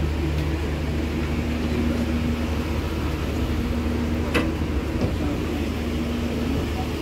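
Steady low hum of a standing train's engine running, heard from inside the train, with one sharp click about four and a half seconds in.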